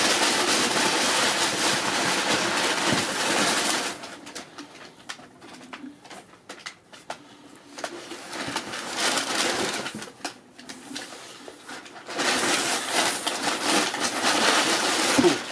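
Packing material rustling and crinkling as hands dig through a cardboard shipping box, in two long stretches. Quieter clicks and knocks of handling come in between.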